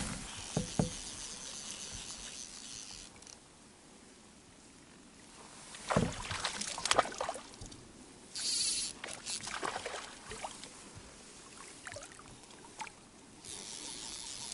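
Fishing gear handled aboard a small inflatable pontoon boat: scattered knocks, clicks and rustles, loudest in a cluster about six to seven seconds in, with a short swish soon after.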